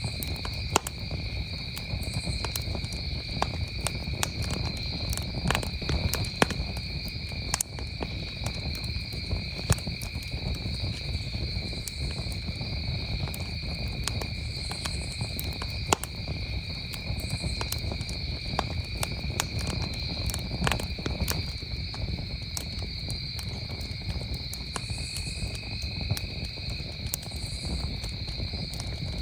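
Wood campfire crackling, with sharp irregular pops scattered through it, over a steady high-pitched chorus of crickets.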